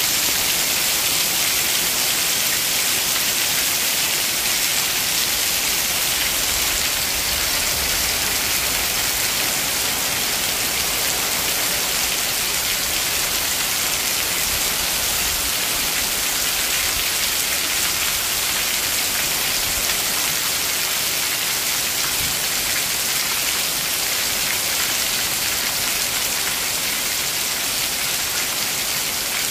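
Heavy rain pouring down steadily: a dense, even hiss of a downpour with no let-up.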